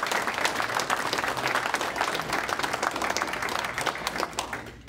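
Audience applauding: many hands clapping fast and irregularly, stopping fairly suddenly near the end.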